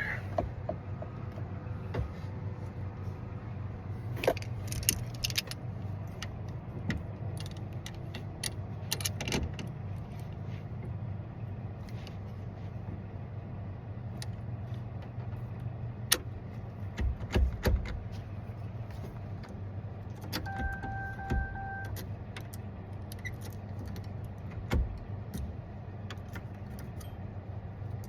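Scattered clicks and metallic clinks of hand tools and loose parts as a steering column is worked on to remove the ignition cylinder, over a steady low hum. A short electronic beep sounds once, about two-thirds of the way through.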